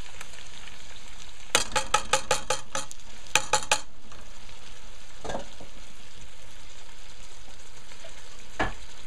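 Beef pieces in curry masala sizzling steadily as they fry in a stainless steel pot. A metal spoon clinks against the pot in a quick run of about ten taps between roughly one and a half and four seconds in, knocking ground green seasoning off the spoon, then knocks twice more later on.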